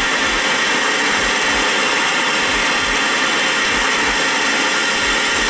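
Spirit box sweeping through radio stations, giving out loud steady static with a faint low pulse about two to three times a second.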